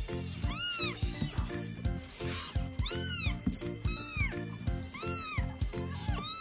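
Young kittens mewing over and over, high thin mews that each rise and fall in pitch, about one a second. Background music with a steady beat plays underneath.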